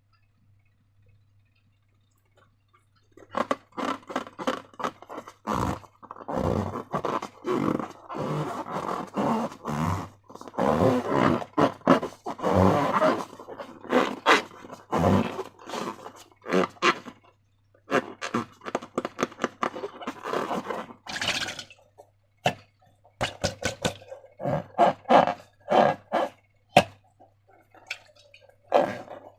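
Slime and rubber balloons being squished and rubbed by hand. Irregular squelches and scrapes with sharp clicks start about three seconds in. They run densely, then thin out into shorter squeezes.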